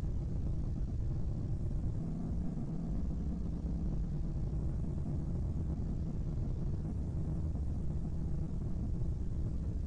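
Steady low rumbling drone with no breaks or strokes, a sound presented as that of the asteroid 2009 YE7.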